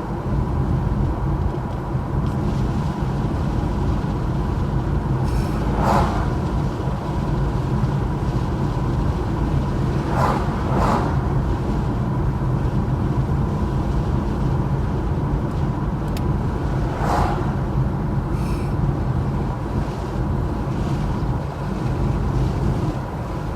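Steady low rumble of a running engine or vehicle, with a few brief, sharper sounds rising above it about 6, 10 and 17 seconds in.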